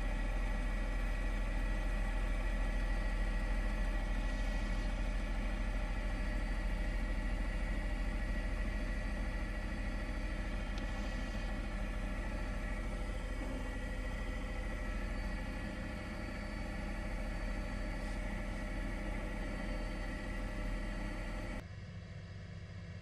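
Steady engine and rotor drone of a news helicopter, a strong low hum with several fixed tones above it, unchanging until it cuts off abruptly near the end.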